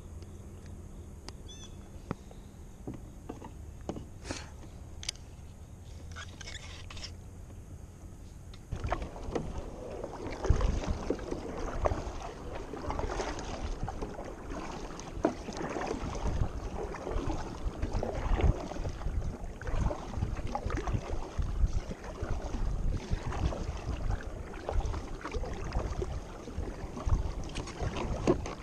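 Quiet at first with a few faint clicks. Then, about nine seconds in, a double-bladed kayak paddle starts dipping into the water: continuous uneven splashing and dripping from the paddle strokes.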